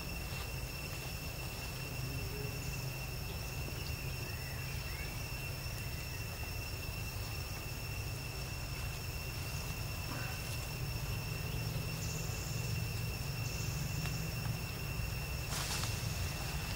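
Outdoor ambience: insects droning on two steady high pitches over a low steady rumble, with a few faint chirps about four seconds in and a brief noisy burst near the end.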